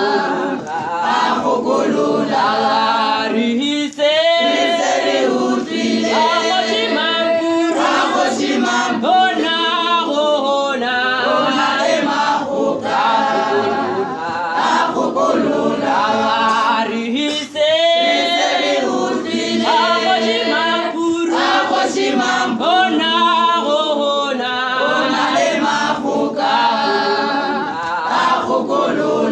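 Women's choir singing a hymn a cappella, several voices in harmony with no instruments.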